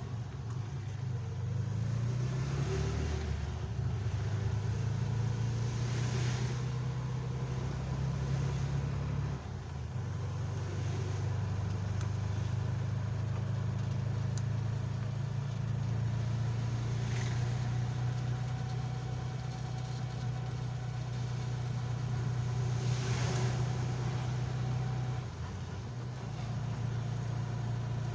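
A vehicle's engine droning steadily as it drives along a wet road, heard from inside the cab, with a brief dip in the drone twice. Over it, tyre hiss from passing traffic on the wet road swells and fades several times.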